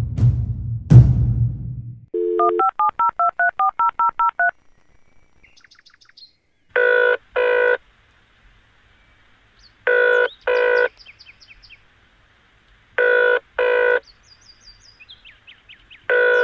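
A phone being dialled: about ten quick touch-tone keypad beeps, then the double-ring ringback tone of the outgoing call, repeating about every three seconds. Birds chirp faintly between the rings. Drum-heavy music fades out in the first two seconds.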